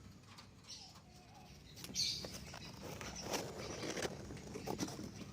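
Lovebirds in a wire cage giving short, sharp chirps, with light tapping and rustling between them.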